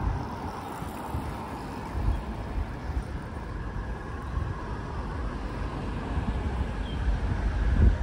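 Steady city street traffic noise from a busy multi-lane road, with low rumbles about two seconds in and again near the end.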